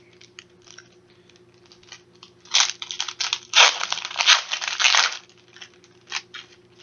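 A 1994 Playoff football card pack's wrapper being torn open and crinkled: a run of tearing and crinkling in the middle, with a few light ticks of card handling before and after.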